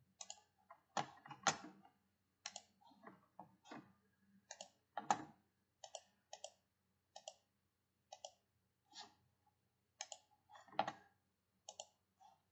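A run of sharp, irregular clicks from a computer mouse and keyboard, many coming in quick pairs, with a few louder clicks among them.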